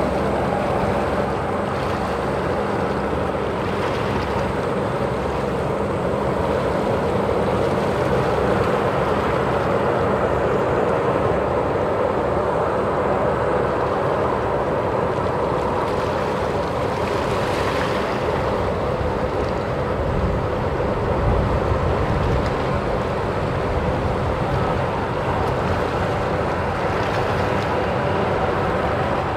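Murasame-class destroyer passing close by at speed: a steady machinery hum mixed with the rush of its bow wave and wake along the hull.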